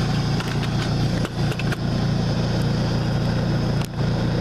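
Honda EU30is inverter generator, a single-cylinder four-stroke on unleaded petrol, running steadily at an even engine speed. There are a few brief dips and clicks about a second and a half in and again near the end.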